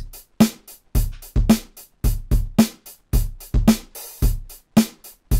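Drum Monkey plug-in playing back a sampled rock-and-metal drum groove at 110 BPM. Kick and snare hits alternate about twice a second, with a short cymbal hit about four seconds in.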